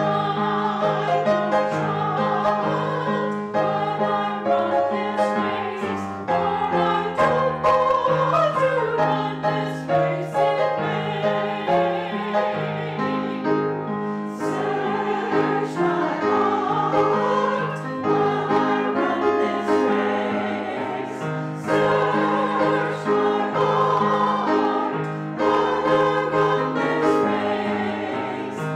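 Choir singing a hymn with piano accompaniment.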